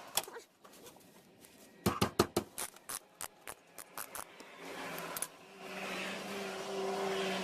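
A 14 mm wrench working on the brake caliper bolts: a quick run of sharp metal clicks and knocks about two to four seconds in. A steady low hum comes up in the last couple of seconds.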